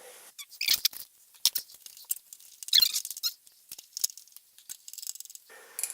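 Screws being driven into a computer case with a screwdriver: an irregular run of short squeaks and clicks.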